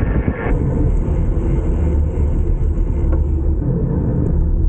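Steady low rumble of wind buffeting the microphone of a camera riding along on a moving bicycle, with road noise mixed in.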